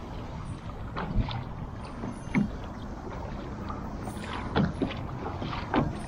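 Small choppy waves slapping against a pedal kayak's hull, a handful of sharp irregular slaps over a steady rush of wind and water.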